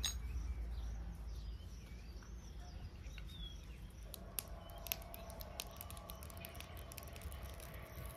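Birds chirping with short calls, then, from about halfway, a scattered series of light sharp clicks and taps over a faint steady hum.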